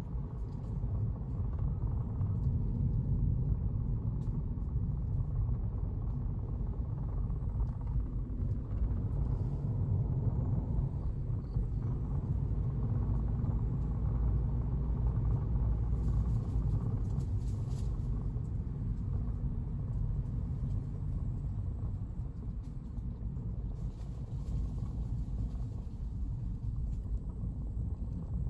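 Car driving along, heard from inside the car: a steady low rumble of engine and road noise.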